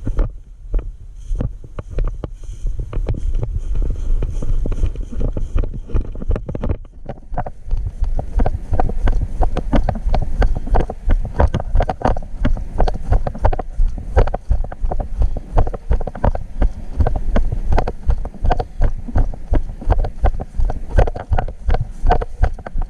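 Wind buffeting the microphone with a low rumble, and rhythmic thumps about twice a second starting about seven seconds in.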